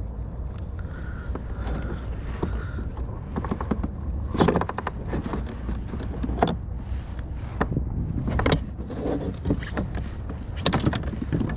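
Low wind rumble on the microphone, with several sharp knocks and splashes as a snook is handled and let go over the side of a kayak.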